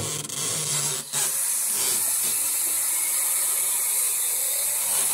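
Bathroom sink faucet running, water filling a plastic drink bottle, a steady hiss that comes on abruptly as the tap is opened.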